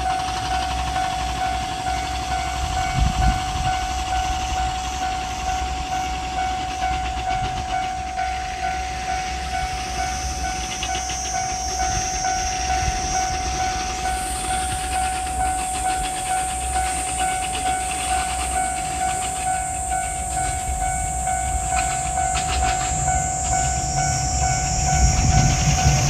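Japanese railway level-crossing warning bell ringing steadily with its repeated electronic clang. Near the end, a JR Shikoku 2700-series diesel express railcar approaching grows louder underneath the bell.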